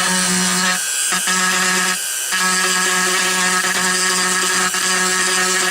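Dremel rotary tool with a pointed grinding stone running steadily and grinding into a Nerf blaster's plastic shell. Its steady hum breaks off briefly twice, about one and two seconds in.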